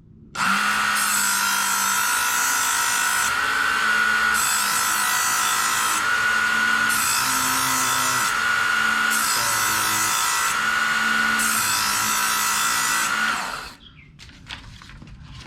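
Electric knife sharpener motor running steadily while a kitchen knife blade is drawn across the abrasive five times, each pass adding a hissing grind over the motor's whine. The motor stops near the end.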